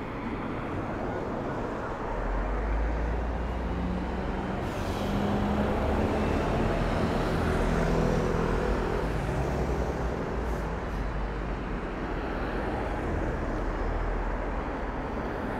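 Drop-through longboard wheels rolling over pavement asphalt with a steady rumble, over road traffic noise; a motor vehicle's hum swells and fades around the middle.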